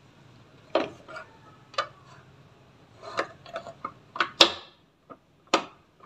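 Irregular hard plastic clicks and knocks as the door switch and its plastic actuator lever are handled and fitted in an Electrolux washing machine's top cover, the loudest knock about four and a half seconds in.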